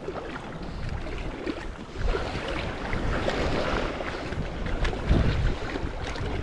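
Wind buffeting the microphone in gusts over small sea waves lapping and splashing around the wading angler.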